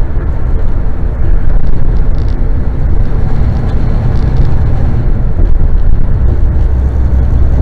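Semi truck driving at highway speed, heard from inside the cab: a loud, steady low rumble of engine, tyres and wind.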